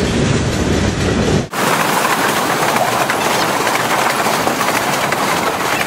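Freight cars rolling past close by: a loud, steady rumble of wheels on rail. About a second and a half in, the sound cuts abruptly to another passing freight train, a brighter rattle of wheels and cars with little low rumble.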